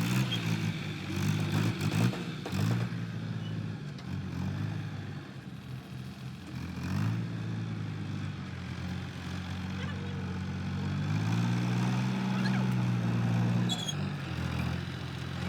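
Cartoon vehicle engine sound effect, a low hum that rises and falls in pitch, with a few sharp clicks in the first few seconds.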